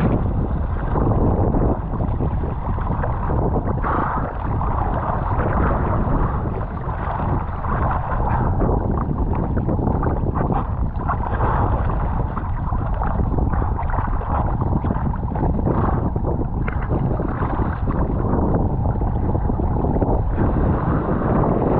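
Loud, steady wind noise buffeting a GoPro Hero 8's microphone, mixed with choppy seawater splashing and gurgling around the camera at the surface.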